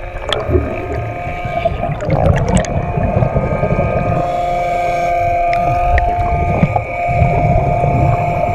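A small motor whining steadily at an even pitch, heard underwater, over a low churning rumble of water.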